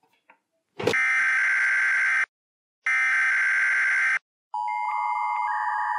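Emergency-alert sound effect: two harsh buzzing blasts, each a little over a second long, then a steady chord of alert tones starting about four and a half seconds in.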